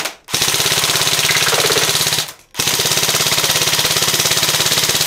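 Airsoft M4 rifle firing on full auto: two long bursts of rapid, evenly spaced shots, the first about two seconds long, then a short pause and a longer second burst.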